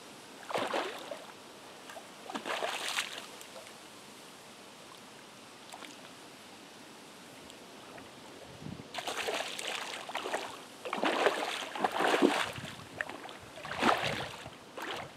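Water splashing and sloshing close by in short irregular bursts, as if stirred by hand: twice in the first few seconds, then a run of louder splashes in the second half.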